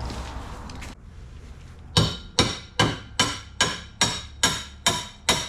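A fast, evenly spaced series of sharp ringing strikes, about two and a half a second, nine in all, starting about two seconds in. Before them, a steady background noise cuts off about a second in.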